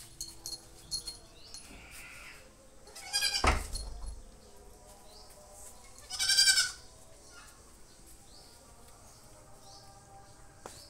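Two loud, quavering bleat-like animal calls about three seconds apart, each lasting under a second.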